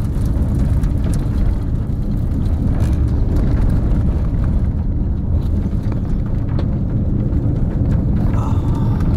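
Strong storm winds near a wedge tornado rushing and buffeting the microphone: a loud, steady low rumble.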